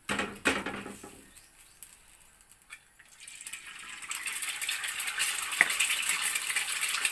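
An egg knocked twice against the pan to crack it, then, about three seconds in, the egg hitting hot oil in a frying pan and sizzling, the crackle building up and holding.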